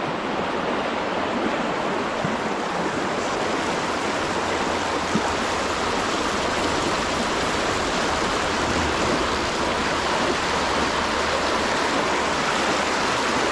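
Fast-flowing stream current rushing steadily, close to the microphone.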